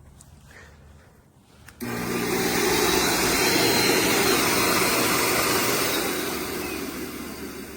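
Electric snow machine's blower fan switching on about two seconds in and running with a steady rushing whoosh and a low motor hum, easing off a little near the end.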